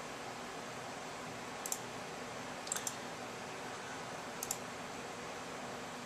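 Computer mouse clicking: three quick pairs of clicks over a steady hiss of computer fans.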